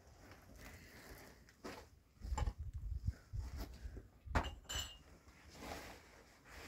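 Scattered clinks and knocks of household things being picked up and moved, with a few low thumps and a sharper click with a short ring about two-thirds of the way through.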